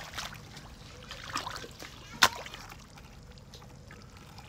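Muddy water trickling and splashing as a bucket of fish is lifted out of the mud, with scattered small splashes and one sharp knock a little after two seconds in.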